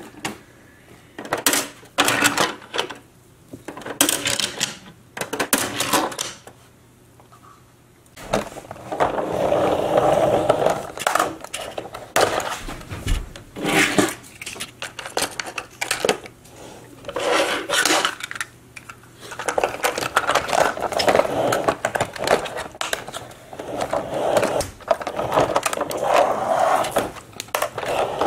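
Die-cast toy cars and a plastic carry case being handled: repeated clicks and clacks of metal on plastic, with stretches of small toy wheels rolling across a tabletop.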